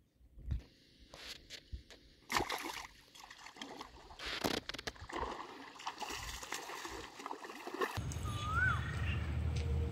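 River water splashing and sloshing as a man wades and works a fishing rod, with the loudest splashes about two and a half and four and a half seconds in. Near the end the sound changes abruptly to a steady low rumble and a bird's short whistled call that rises then falls.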